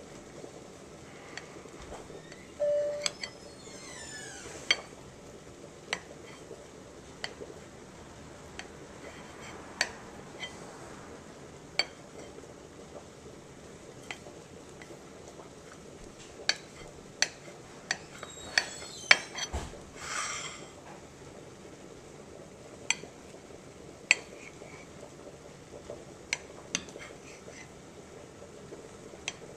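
Cheese knife cutting a block of cheese on a plate: irregular sharp clicks and taps as the blade meets the plate, with a couple of brief louder scrapes.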